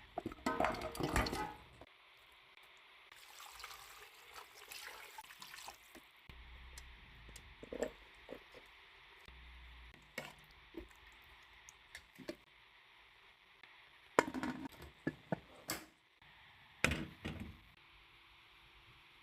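Water pouring and splashing in the kitchen, with scattered sharp knocks and clinks of cookware between short splashy bursts.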